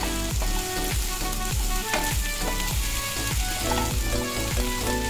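Cauliflower, carrots, beans and sweet corn sizzling in butter and oil in a nonstick kadai, stirred with a wooden spatula that scrapes and taps against the pan.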